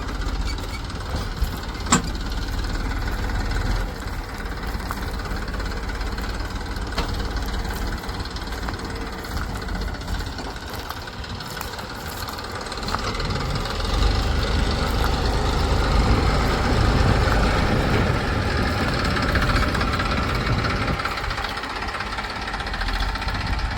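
Diesel engine of heavy farm or earth-moving machinery running steadily, growing louder from a little past halfway and easing back near the end.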